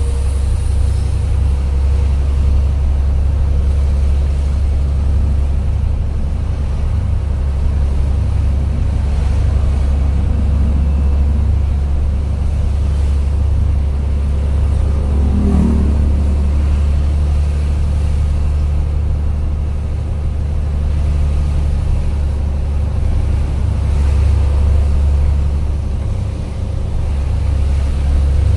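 Truck engine running steadily under way, heard from inside the cab as a deep, even drone with road noise.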